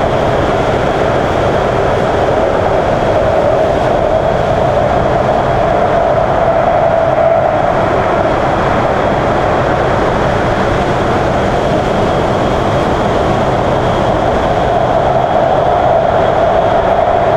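Shenzhen Metro Line 14 train running at steady speed: a continuous rolling drone with a steady hum running through it.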